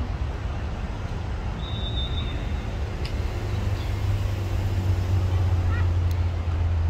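Football match ambience: a steady low rumble with faint distant shouts, and one short, high whistle blast about two seconds in.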